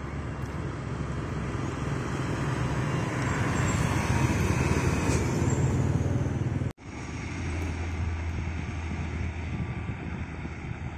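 Heavy truck driving past close by, its engine drone and road noise building to their loudest as it goes by. The sound cuts off abruptly about two-thirds of the way through and is followed by the steady low drone of another truck engine.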